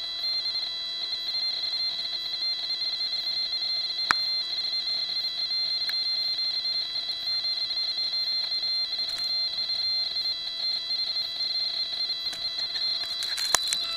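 Steady high-pitched electronic alarm tone from the downed tricopter's electronics, sounding on after the crash. A sharp click about four seconds in and a few knocks near the end.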